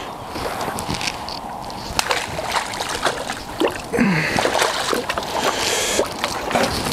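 Water splashing and sloshing with scattered knocks and clicks, louder for a couple of seconds past the middle, as a freshly landed carp is handled in the landing net at the water's edge.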